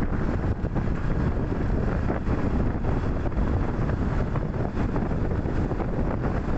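Steady wind rushing over the microphone of a moving camera, mixed with the noise of passing road traffic.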